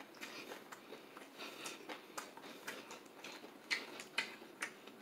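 Close-miked crunching and crackling of crispy fried chicken being chewed and pulled apart by hand: a run of faint, irregular crisp clicks, with a couple of sharper cracks near the end.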